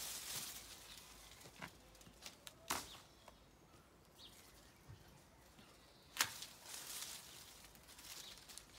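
Bypass loppers snipping through bay tree branches: a few sharp snaps, the two loudest about three and a half seconds apart, with the rustle of leaves and twigs as the branches are moved.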